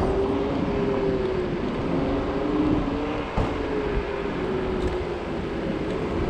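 Wind rushing over a body-mounted microphone and road rumble while riding a Zero 10X electric scooter, with a steady hum that drifts slightly in pitch.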